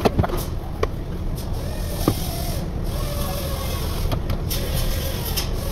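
Volvo V60 plastic door trim panel being lifted off the door, giving a few sharp clicks and knocks in the first two seconds over a steady background hum.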